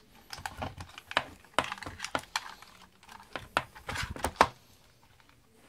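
Irregular light clicks and knocks of a Leopard brushless motor's aluminium can against an RC truck's motor mount as it is lined up on the mount's peg and seated, stopping about four and a half seconds in.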